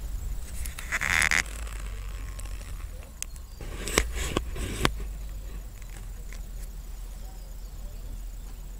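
Wind rumbling on a handheld camera's microphone. There is a brief scraping noise about a second in and a few sharp clicks between four and five seconds in.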